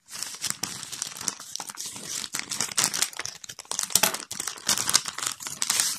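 Plastic mailing bag crinkling and rustling in a dense run of crackles as it is cut open with scissors and handled.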